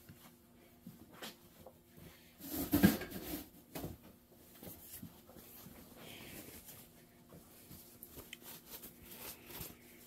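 Workshop room tone: a faint steady electrical hum with scattered light clicks and handling noises, and one louder rustling clatter just under a second long about three seconds in.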